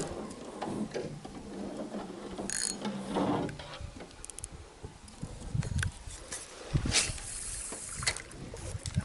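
Spinning reel being wound in, its mechanism whirring and clicking, with scattered knocks.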